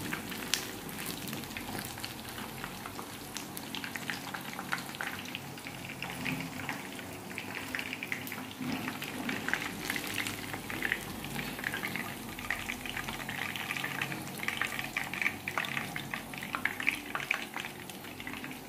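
Chicken drumsticks frying in hot oil in a pan, a steady sizzle full of crackles and pops, with a spatula stirring and turning the pieces.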